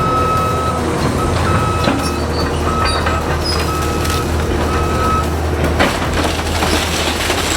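Heavy demolition machine's diesel engine running steadily, with its backup alarm beeping on and off for the first five seconds or so, and scattered knocks and cracks.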